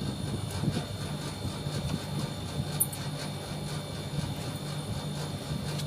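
Air conditioner outdoor unit running: a steady compressor hum with fan noise and a faint, steady high whine.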